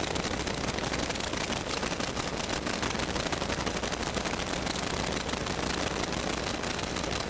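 Radio or TV interference static: a steady hiss packed with rapid crackling clicks.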